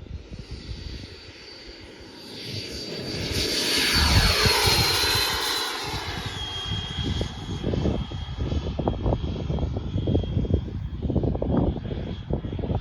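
120mm electric ducted fan model jet whining as it flies past: the sound swells about four seconds in, then fades slightly, and its high fan tone slides down in pitch. Wind buffets the microphone with low rumbling gusts.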